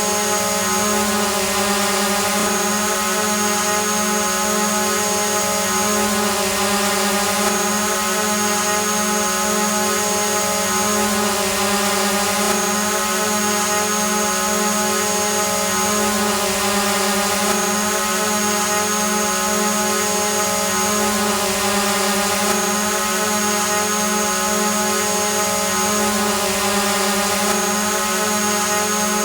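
Hovering drone's propellers and motors giving a steady buzzing whine with many overtones, holding a constant pitch; the pattern repeats about every five seconds, as a looped recording does.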